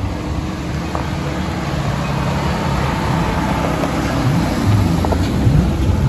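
Pickup truck's engine running at low speed close by, a steady low hum that grows a little louder toward the end.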